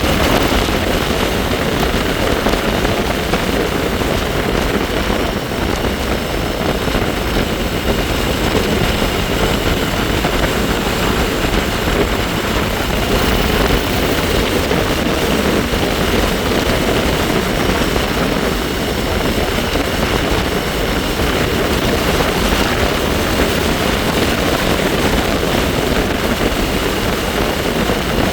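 Wind rushing over the microphone on a moving bike, mixed with the bike's steady running noise and a faint high whine, which the rider likens to the Jetsons' car.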